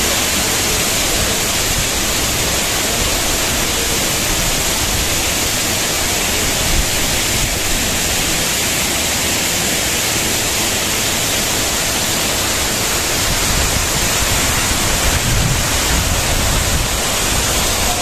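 Waterfall pouring, a loud, steady rush of falling water.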